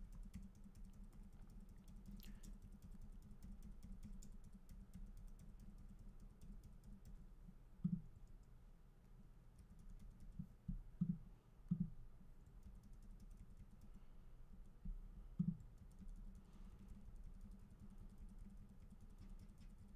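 Faint, rapid clicking of computer keyboard keys, with a few dull thumps about eight, eleven to twelve, and fifteen seconds in.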